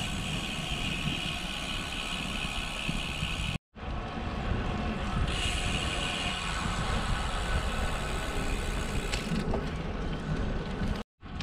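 Wind buffeting the microphone and road tyres rolling on pavement as a road bike is ridden along at speed. A steady high buzz comes and goes over the rumble. The sound cuts out completely for a moment twice, a few seconds in and near the end.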